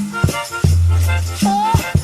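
Background music: an instrumental passage of a song with a steady beat, a deep sustained bass note and shaker-like percussion.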